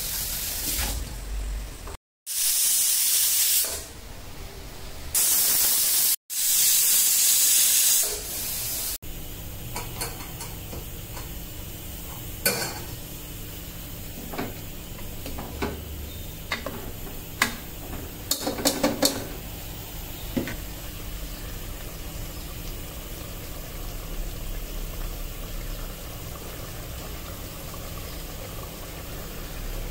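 Stovetop pressure cooker whistling: three loud bursts of high steam hiss from its weight valve over the first nine seconds, each starting and stopping abruptly. Then a spoon stirring curry in the open stainless-steel cooker, with a few sharp clinks and scrapes against the pot.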